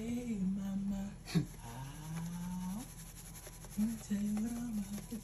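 A person humming in long, low notes that slide up and down, with one sharp click about a second and a half in.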